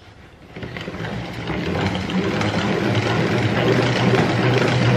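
Salad spinner turned by its crank handle, whirring as the basket spins wet lettuce dry. The whir starts about a second in, builds up, then runs on steadily.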